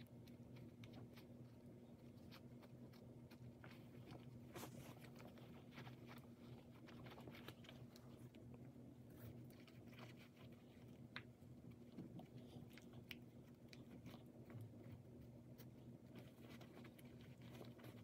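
Faint near-silence with scattered small ticks and rustles of sneaker laces being pulled tight and tied, over a low steady hum.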